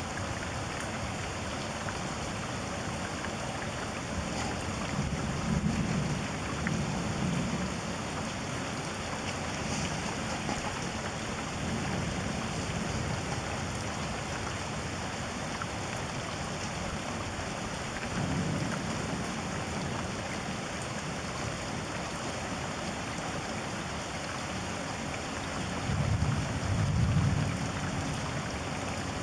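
Steady hiss of heavy rain with low rolls of thunder rumbling several times, the loudest about a quarter of the way in and near the end.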